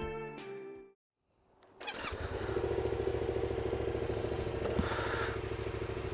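Music fades out in the first second. After a short gap, a Yamaha XSR700's 689 cc parallel-twin engine comes in, running steadily.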